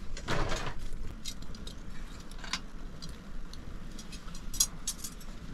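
Wood fire burning in an open clay hearth: scattered sharp crackles and pops over a low steady rumble, with a cluster of crackles near the end.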